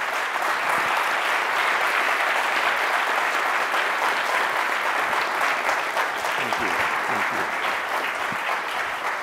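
Audience applauding: dense, steady clapping from a large crowd that begins to thin out near the end.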